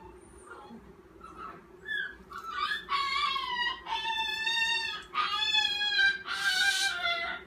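Fearful puppy crying out in high, drawn-out yelping wails: a short yelp, then about four long cries of roughly a second each, every one sliding slightly down in pitch. The cries are a sign of the puppy's fear at being held on the leash and handled.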